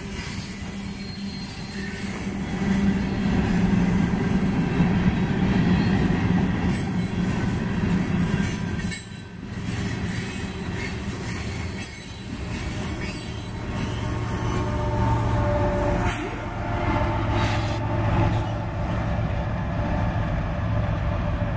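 Freight train cars rolling past at close range: a steady rumble and clatter of steel wheels on the rails, with some wheel squeal.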